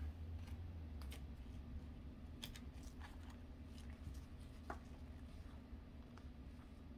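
Faint, scattered clicks and slides of football trading cards flicked through one by one in a small stack by hands in nitrile gloves, over a low steady hum.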